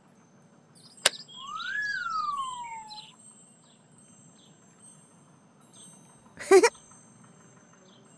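Cartoon sound effects: a sharp click as the rotating beacon snaps onto the toy sweeper's roof, then a sparkly chime that glides up and back down for about two seconds. Faint bird chirps go on behind, and a brief loud pitched sound with a falling pitch comes near the end.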